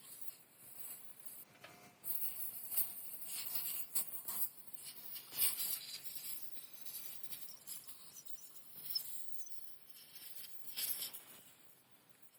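Irregular scratching and scraping, getting louder about two seconds in, with a few sharp ticks mixed in.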